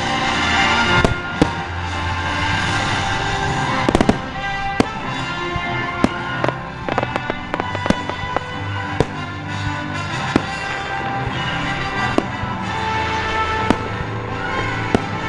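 Sharp, irregular bangs and crackling pops of fireworks, with a dense cluster about four seconds in, heard over background music.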